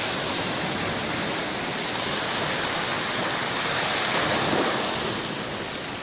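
Steady rushing outdoor noise that holds even throughout.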